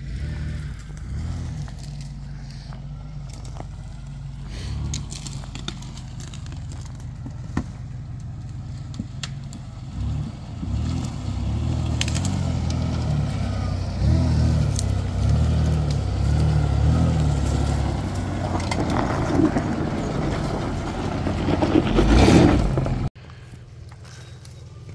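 Lifted four-wheel-drive truck engine crawling off-road, revving up and easing off several times as it works through brush, with sharp snaps and scraping of branches. Near the end it cuts suddenly to a quieter, steadier engine note.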